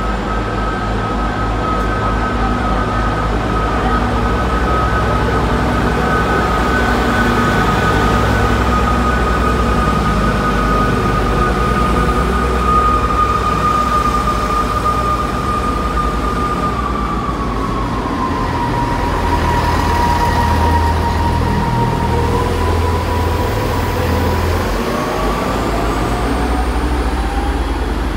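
Class 158 diesel multiple units pulling away from a platform: the underfloor diesel engines run under power with a low rumble and a high transmission whine that drops in pitch about two-thirds of the way through, then a fresh whine rises near the end as the train gathers speed.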